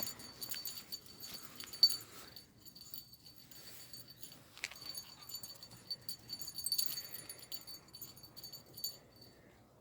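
Light metallic jingling in irregular bursts, high ringing tones with scattered clicks, and one sharp click about two seconds in.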